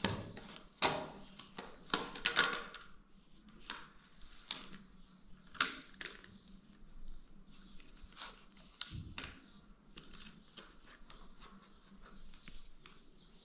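Irregular clicks, taps and knocks of a hard plastic toy excavator part being handled and knocked about by a baby, with a duller thump about nine seconds in.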